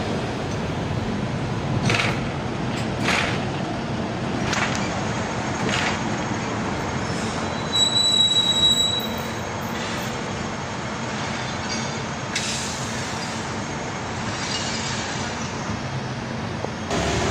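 Hong Kong double-decker electric tram heard from inside its upper deck: a steady low rumble with a few short knocks and rattles, and a brief high-pitched tone about eight seconds in.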